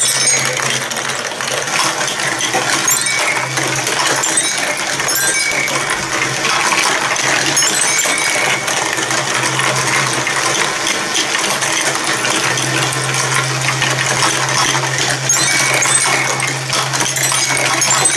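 Plastic balls and marbles clattering and rolling through a plastic block marble run's tubes, funnels and chutes in a continuous stream of small clicks and clacks. Under it the small battery motor of the ball lift hums steadily, dropping in and out and running longest past the middle.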